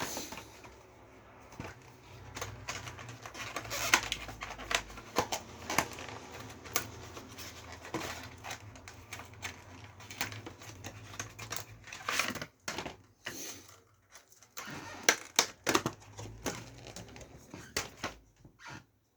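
Irregular sharp plastic clicks and taps of desktop RAM modules being handled and pressed into motherboard memory slots.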